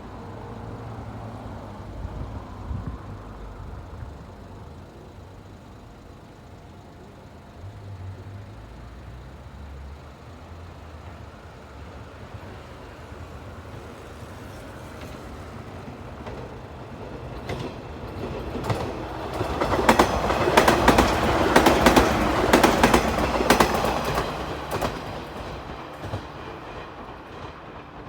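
415 series electric multiple unit pulling away from a station: a low hum as it starts off, then its wheels clacking over rail joints in quick repeated beats as the cars pass close by, loudest about twenty seconds in before fading.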